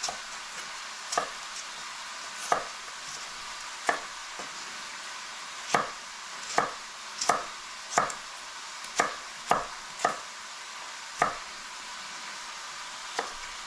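Chef's knife cutting celery stalks lengthwise into strips on a wooden cutting board: a sharp knock each time the blade meets the board, about a dozen strokes at an uneven pace. Under it, a steady sizzle of pancetta and ground meat browning in a pan.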